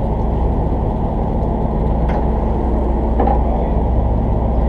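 Fishing charter boat's engine running steadily, a low continuous rumble with a constant hum beneath it.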